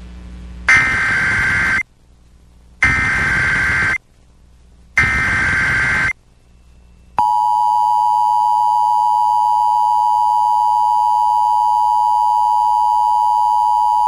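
Emergency Alert System header: three one-second bursts of SAME digital data, a buzzing, warbling screech, followed about seven seconds in by the steady two-tone EAS attention signal, which continues. This is the opening of a broadcast EAS test alert.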